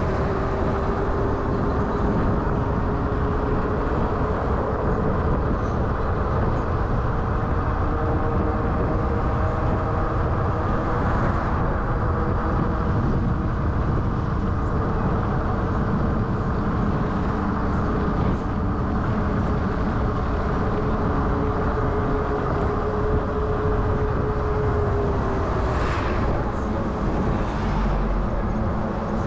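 Wind buffeting and road rumble on a GoPro camera riding along on an electric bike, with a steady motor whine that rises a little in pitch over the first several seconds, holds, and cuts out near the end.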